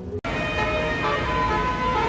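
Background music cut off abruptly just after the start, then a bus's multi-tone 'telolet' horn playing a quick tune of shifting notes over road noise.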